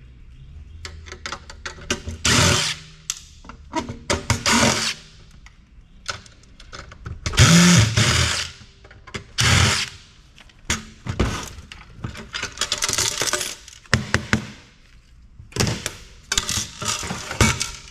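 Cordless driver run in short whirring bursts to back screws out of a sheet-metal chassis, between many clicks and clinks of screws and metal parts.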